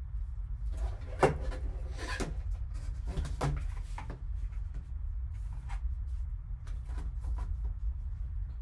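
A sealed cardboard trading-card box being opened and handled by hand: a series of knocks, scrapes and rustles, busiest in the first few seconds, then lighter ticks, over a steady low hum.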